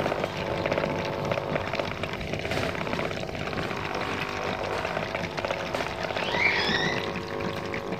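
Electric air pump running with a steady hum, pushing air through a homemade gasoline-vapour generator to feed a burning gas-stove burner. A brief high chirp comes about six and a half seconds in.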